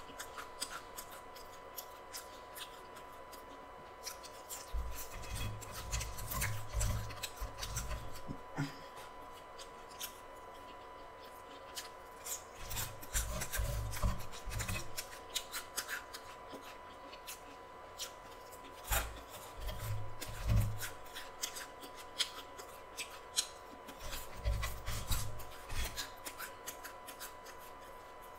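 Close-miked chewing and crunching of a fried chicken sandwich and French fries, with many small wet mouth clicks, in four spells of heavier chewing. A faint steady high tone runs underneath.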